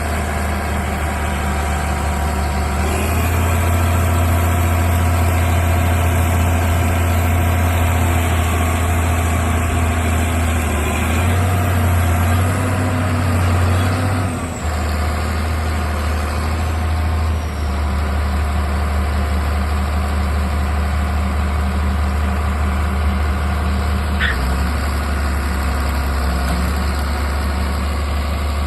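Heavy diesel harvesting machinery running under load: a steady low engine drone whose pitch steps up a few seconds in and shifts several more times, with a brief dip about halfway through.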